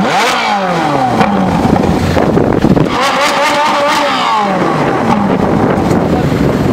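Ferrari 458 Spider's naturally aspirated V8 revved while parked: quick blips that rise and fall away, then one rev held high for about a second and a half near the middle before it drops back.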